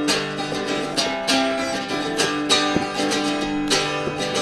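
Acoustic guitar music: strummed chords in a quick, steady rhythm, with plucked notes ringing between the strokes.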